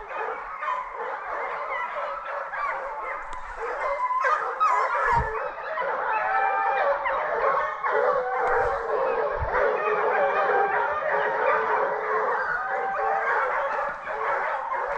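A pack of hunting hounds baying and yelping while they drive game, with many voices overlapping without a break.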